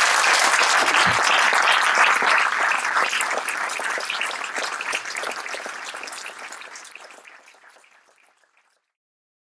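Audience applauding, a dense patter of many hands clapping that holds for about three seconds and then dies away, gone by about eight seconds in.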